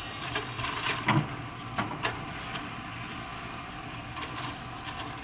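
Hydraulic excavator's engine running steadily while its grapple handles concrete blocks, giving a quick series of knocks and clatters of concrete, the loudest about a second in, with a few lighter clinks near the end.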